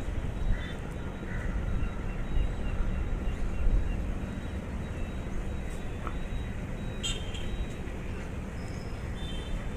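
Steady low rumble of background road traffic, with a few short, high horn toots.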